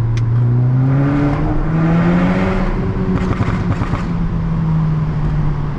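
Volkswagen Golf R's turbocharged four-cylinder engine with an aftermarket turbo-back exhaust, pulling under acceleration: its pitch climbs in steps over the first two seconds, then holds steady. Heard through an open car window.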